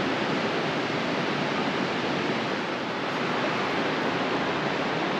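Steady rushing of falling water from a nearby waterfall: an even, unbroken hiss that holds at one level throughout.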